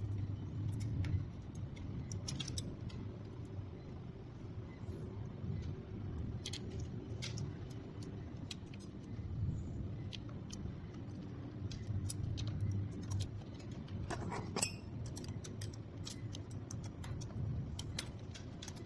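Small metal clicks and clinks of bolts, washers and tools as a bicycle disc brake caliper is fitted and its cable pulled through, scattered irregularly with a louder clatter near the end, over a low steady hum.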